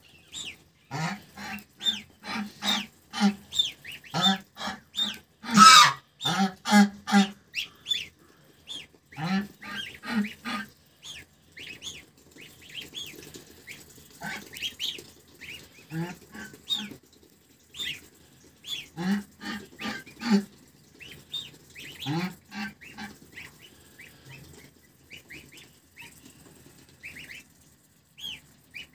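Domestic goose honking in runs of short calls, the loudest about six seconds in, with goslings peeping in thin, high notes between the calls.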